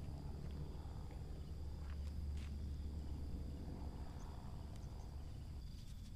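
Outdoor ambience of insects trilling in a steady high tone over a constant low rumble, with a couple of faint clicks about two seconds in.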